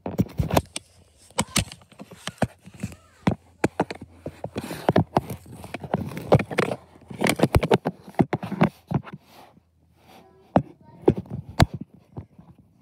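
Irregular knocks, clicks and rustling from handling a phone camera close to its microphone while it is carried around.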